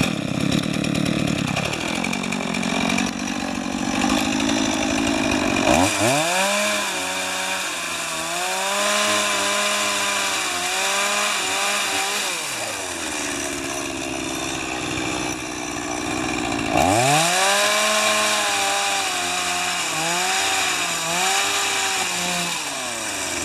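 Two-stroke chainsaw powerhead driving an Izhtekhmash ice-auger attachment. It has just started and runs at low speed, then revs up sharply about six seconds in as the auger bores into the ice, its pitch rising and dipping under load. It drops back near thirteen seconds, then revs up again about seventeen seconds in, rising and dipping as it drills.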